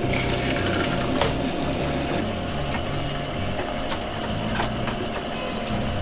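Water running steadily, as from a tap, with a faint steady hum and a few light clicks.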